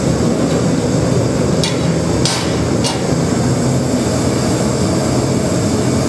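Landfill-gas forge running with a steady rushing noise, with three sharp metal strikes, like hammer blows, close together about two seconds in.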